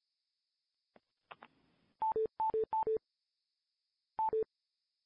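Conference-call system sounding a falling two-note beep, a higher tone then a lower one, four times: three in quick succession about two seconds in and one more about four seconds in. These are the exit tones of callers hanging up from the call.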